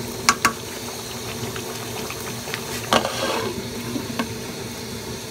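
Duck curry simmering and bubbling in a pot, with two sharp taps about a third of a second in and a clink about three seconds in as the glass lid is set back on the pot.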